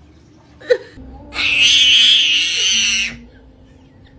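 A cat giving one long hiss of about two seconds, high-pitched and noisy. A brief sharp sound comes just before it.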